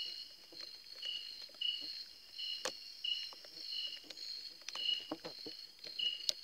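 Night insect chorus: a steady high trill with a shorter chirp repeating about every two-thirds of a second. Two sharp clicks stand out, one a little before halfway and one near the end.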